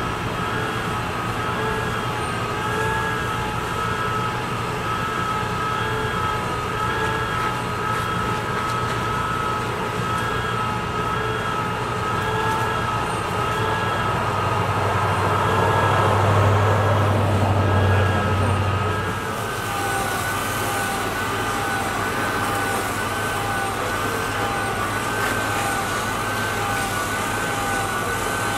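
Fire engine running at a working truck fire: a steady low engine hum with a faintly wavering high whine over it and a constant rushing noise. The din swells for about four seconds around the middle, then drops back.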